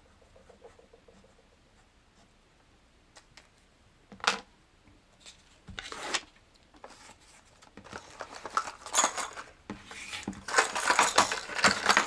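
Faint pen-on-paper scratching at first, then handling noises: a sharp click about four seconds in, and rustling and clattering of objects on a desk that grow busier over the last few seconds.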